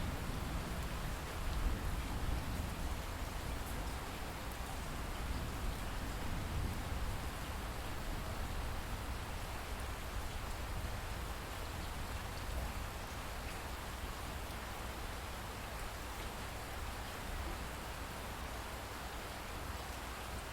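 Steady light rain, with a low rumble of distant thunder dying away in the first few seconds.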